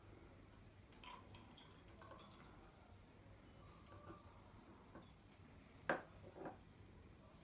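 Faint trickle and drips of water being poured from a small glass into a glass test tube, with a few light ticks of glass. About six seconds in, two sharper knocks as the glass is set down on the table.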